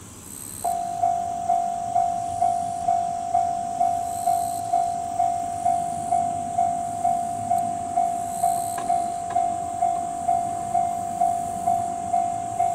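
Japanese railway level-crossing alarm starting to ring about a second in, a single electronic tone repeating evenly at a little over two strikes a second, the warning that a train is approaching.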